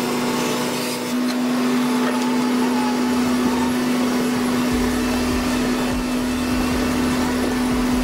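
Atlas 260LC tree-care excavator running with a steady, even machine drone and a constant hum.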